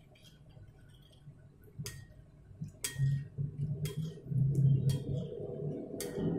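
Spoon stirring seasoning into hot water in a ceramic bowl, clinking against the bowl about once a second. A low rumbling hum grows louder in the second half.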